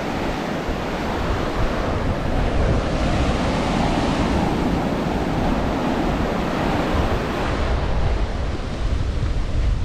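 Surf washing onto a sandy beach, with wind rumbling on the microphone; the wash swells in the middle and eases off near the end.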